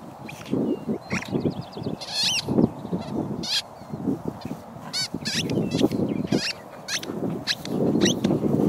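A rubber dog ball squeaking as a German Shepherd chews it in her mouth: a string of short, high, honk-like squeaks.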